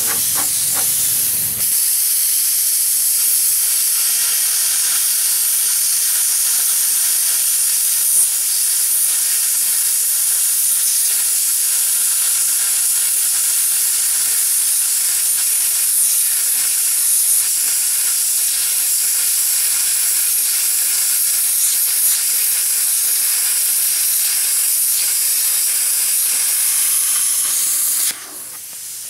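Handheld plasma cutter slicing through 3/16-inch steel plate: a steady hiss from the cutting arc and air jet. It starts about two seconds in and cuts off suddenly near the end.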